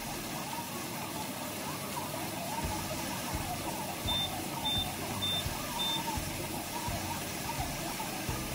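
Four short, high-pitched beeps about half a second apart, from a washing machine's control panel as a wash cycle is being set, over a steady background hiss.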